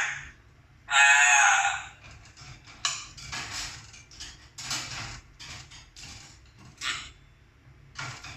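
A loud bird call lasting about a second, starting about a second in, followed by scattered short knocks and rustles.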